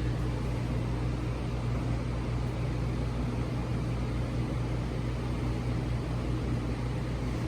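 Steady low hum with an even hiss behind it, unbroken: background room noise.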